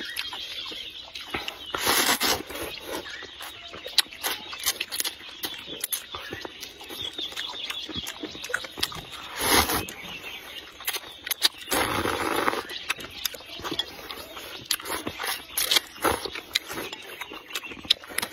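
People slurping rice noodles from soup bowls and chewing with wet smacking, with several long slurps, one about two seconds in and two more near the middle, between many small wet clicks.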